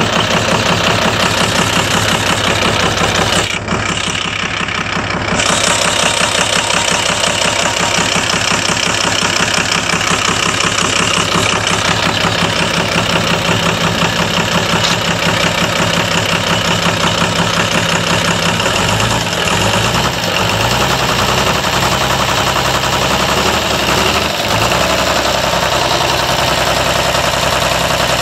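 Komatsu S6D105 turbocharged six-cylinder diesel engine running steadily at idle, an engine with blowby.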